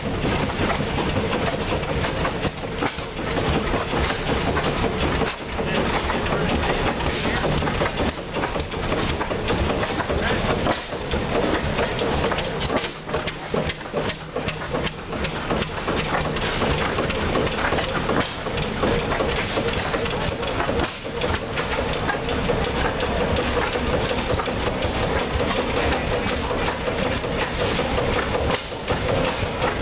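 Large antique stationary flywheel engine running steadily, mounted on a trailer.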